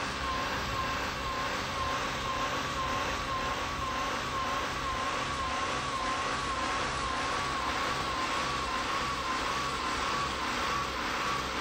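Bridge inspection truck running steadily while its boom is moved, with a steady high whine that wavers up and down about twice a second.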